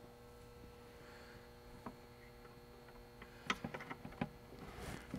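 A few faint clicks of a small metal bolt being handled and fitted to a transducer mounting bracket, over a steady electrical hum.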